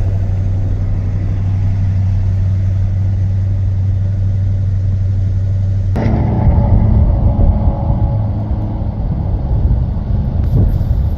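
1969 Ford F-250 Highboy's engine idling steadily, then, after a sudden cut about six seconds in, running rougher and louder as the truck drives by, easing off near the end.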